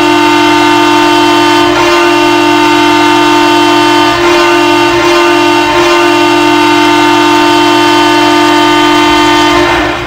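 Ottawa Senators' arena goal horn sounding one long, loud, steady blast to signal a goal, cutting off just before the end.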